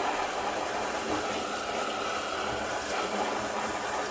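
Kitchen sink sprayer running steadily, its water spraying onto a reusable air-conditioner filter to rinse the dust off.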